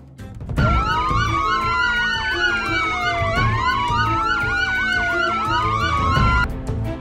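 Emergency-vehicle siren sound effect: a slow wail rising and falling, layered with a second falling sweep and a quick warble, starting about half a second in and cutting off abruptly near the end, over background music with a steady beat.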